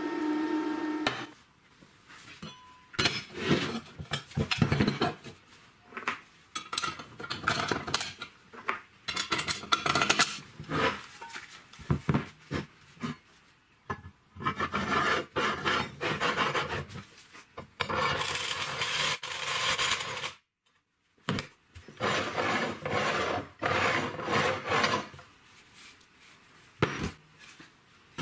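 A hand tool rasping over steel in repeated strokes, in bursts of one to three seconds with short pauses between. It opens with a steady humming tone that cuts off about a second in.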